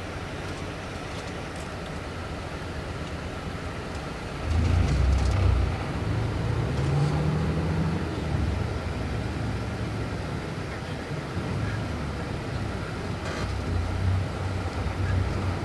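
Scania K400 diesel engine of a Marcopolo Paradiso 1800DD double-decker coach running low and steady, then about four seconds in it gets suddenly louder and its pitch rises as it pulls under load, before settling into a steady, louder run.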